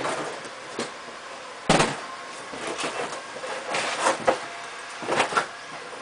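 Irregular knocks and clatter from installers handling boards and parts at an air conditioner's outdoor unit, heard through a window pane, with one sharp knock standing out about two seconds in.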